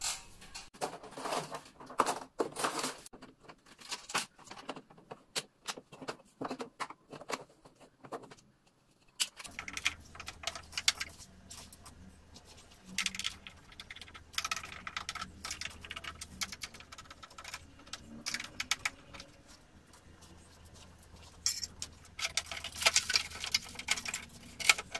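Irregular clicks, taps and plastic clatter as the casing of a split air conditioner's indoor unit is unclipped and taken off. A steady low hum comes in under the clicks about nine seconds in.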